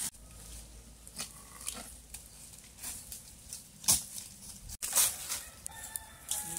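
Rustling and crunching in dry leaf litter underfoot, with scattered sharper clicks, the loudest about 4 and 5 seconds in. A few faint short animal calls, typical of farmyard fowl, sound in the background.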